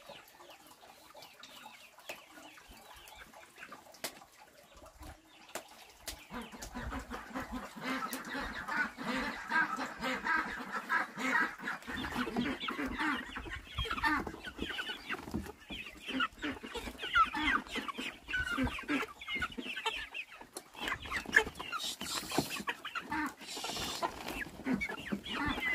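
A flock of chickens clucking as they crowd in to be fed grain, starting about six seconds in after a quiet start.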